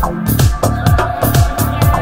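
Background electronic dance music with a steady, fast kick-drum beat, hi-hats and sustained synth tones.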